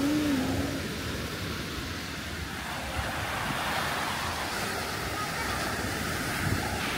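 Ocean surf breaking and washing up the sand: a steady rushing noise.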